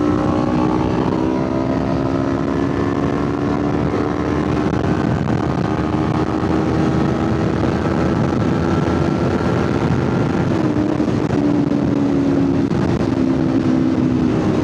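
Kawasaki Ninja 500 parallel-twin engine running at a steady highway cruise under heavy wind noise on the mic. The engine note creeps slowly upward, then drops a little about ten seconds in.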